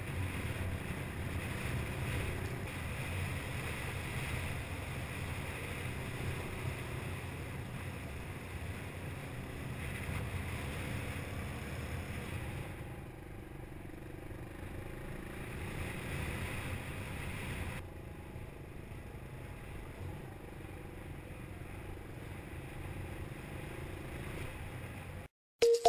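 Suzuki DR200 single-cylinder four-stroke dirt bike engine running steadily as it rides a rough dirt trail, with wind and rumble on the bike-mounted camera's microphone. The sound cuts off suddenly near the end.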